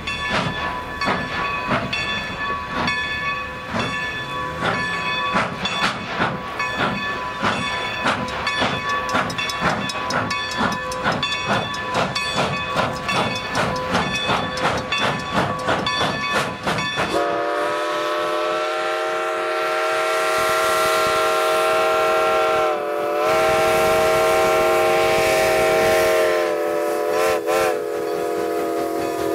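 A Norfolk & Western steam locomotive working hard, its exhaust chuffing in a steady beat that quickens. Then, a little over halfway in, its chime whistle sounds a loud chord in a long blast, breaks off briefly, blows again, and wavers before it stops.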